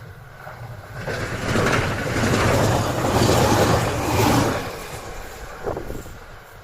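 A train passing at speed close by: the rush of wheels on rail swells about a second in, stays loud for about three seconds, then fades. A short falling tone sounds near the end.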